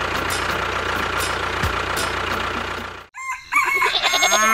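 A steady whirring noise with a low hum and faint regular ticks cuts off about three seconds in. A rooster then crows loudly, ending on one long held note.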